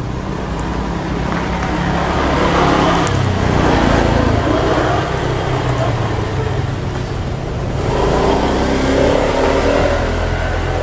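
Road traffic: motor vehicles running and passing close by, swelling louder about three seconds in and again about eight seconds in over a steady low engine hum.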